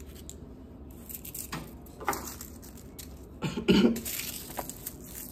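A woman coughing briefly, about three and a half seconds in.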